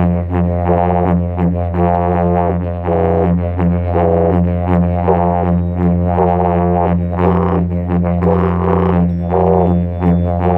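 Music: a steady low drone that never breaks, with overtones above it shifting and pulsing in a loose rhythm.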